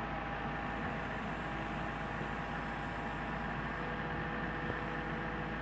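Gradall 4300 II excavator's engine running steadily, with a low rumble and a faint steady whine over it.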